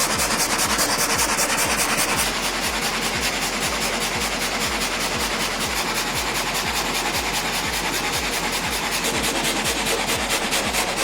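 Sawmill machinery running, its saw rasping steadily through wood, with an even low thumping about three times a second.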